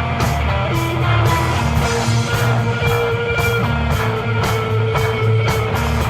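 Live instrumental desert rock: electric guitar holding long, sustained notes over a deep bass line and drums keeping a steady beat on the cymbals.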